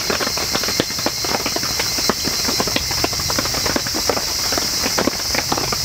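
Night-time insect chorus, a steady high-pitched hiss, over dense irregular ticks and pops.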